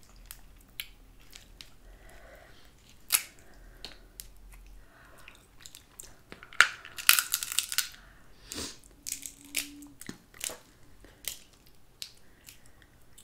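Cooked Dungeness crab shell being cracked and picked apart by hand: scattered clicks and crackles, with a louder crackling crunch about seven seconds in.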